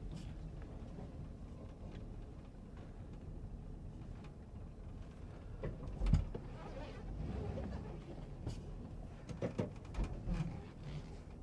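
Cab interior of a 1985 Dodge B150 van on the move: a steady low engine and road rumble, with a sharp knock about six seconds in and a few short clunks near the end.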